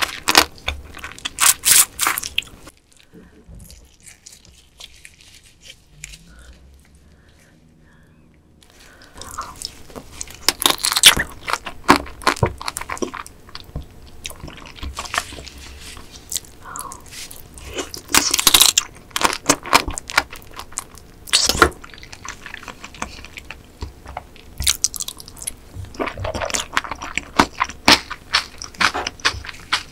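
Close-miked eating of spicy marinated raw crab: bites into the sauced shell pieces crunch and squish in repeated clusters, with wet chewing between them. About three seconds in the sounds drop away for some five seconds before the crunching resumes.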